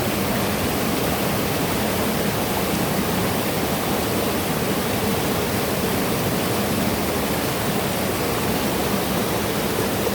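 Rushing river water, a steady continuous rush with no break.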